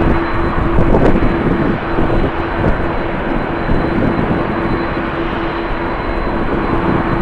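Jet airliner engine noise with a steady hum, mixed with strong wind buffeting the microphone in uneven gusts.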